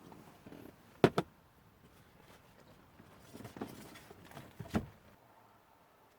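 Two sharp clicks about a second in, then a couple of seconds of rustling and small knocks from objects being handled, ending in a louder knock.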